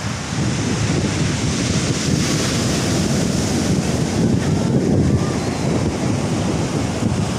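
Heavy ocean surf breaking and washing ashore in a steady, loud rush, with wind buffeting the microphone.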